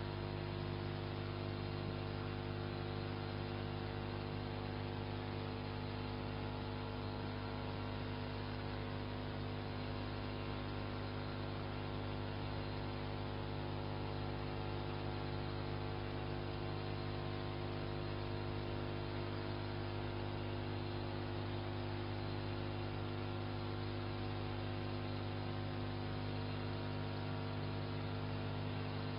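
Steady electrical mains hum with a stack of buzzing overtones and a light hiss, unchanging throughout: the hum of an old home-video soundtrack.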